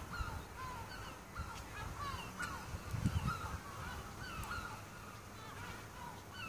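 A flock of birds calling without a break: many short, overlapping calls, each dropping in pitch. A low bump of wind or handling on the microphone comes about three seconds in.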